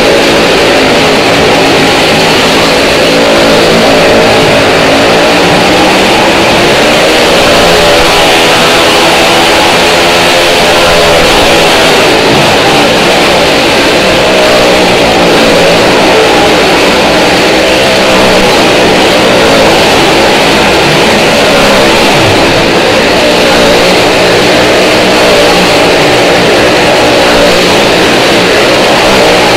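Car and motorcycle engines running and revving continuously as they circle the vertical wooden wall of a well-of-death stunt drum. The sound is loud and unbroken, its pitch rising and falling with the throttle.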